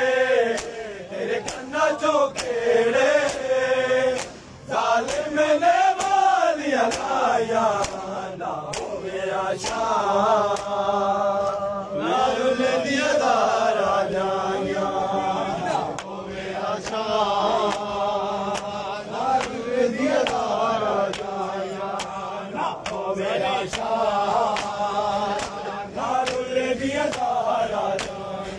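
A group of men chanting a noha, a Shia lament, together in sung lines with brief breaks between phrases. Frequent sharp slaps of matam (chest-beating) are heard among the voices.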